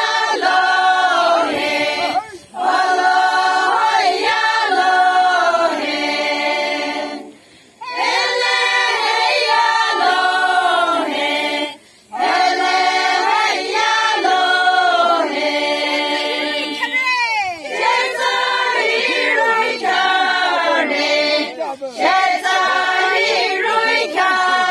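A group of women singing an unaccompanied Sangtam Naga folk song together, in long phrases broken by short breath pauses. About two-thirds of the way through there is a sliding, falling vocal cry.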